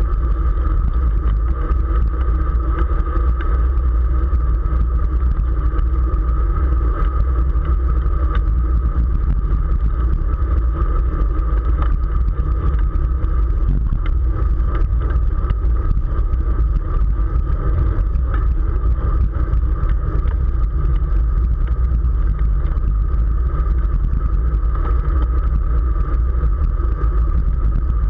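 Wind buffeting the microphone of a camera on a road bicycle while riding, a steady low rumble with a constant hum running through it.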